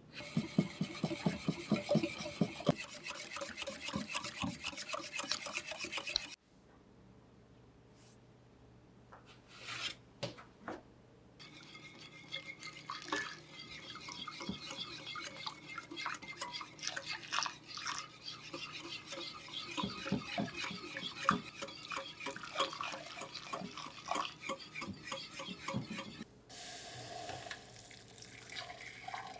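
A utensil stirring fast against a bowl in quick regular strokes for about six seconds, then after a pause, a longer spell of less even stirring and scraping with occasional clinks.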